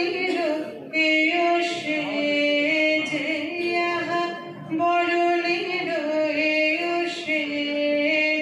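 A woman singing a slow melody into a microphone, holding long notes and stepping between them in phrases.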